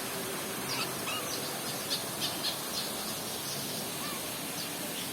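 Aviary birds settling to roost at dusk, giving scattered short high chirps several times a second with a few softer, lower curved calls, over a steady background hiss.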